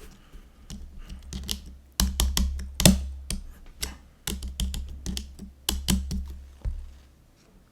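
Keys of a GoPolar TKL mechanical keyboard fitted with silent tactile switches (Silent Cream Yellow Pro) being pressed in quick irregular runs of soft clicks, as the rebuilt board is test-typed. The typing is heaviest from about two seconds in and thins out near the end.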